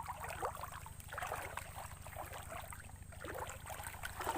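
Stream water flowing and gurgling.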